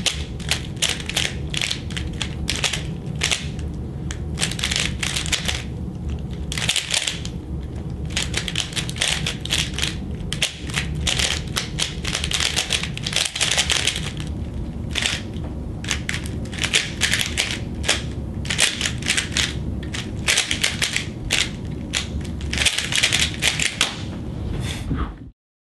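Rubik's Cube being turned very fast in a speedsolve: a dense, continuous clatter of plastic layers clicking as they turn, with a few brief lulls.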